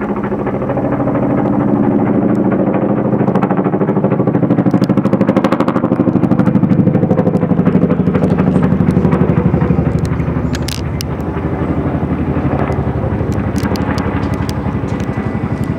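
Boeing CH-47 Chinook twin-rotor helicopter flying close by, loud, with a fast rotor-blade thudding and an unusual slow chuffing like a steam train, louder in the middle. The recordist suspects something is different about one of the six rotor blades, perhaps a bird strike.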